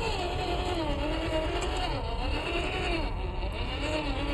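Electric motor and gearbox of a WPL Toyota FJ40 scale RC crawler whining as it climbs, the pitch rising and falling about once a second with the throttle, over a steady low rumble.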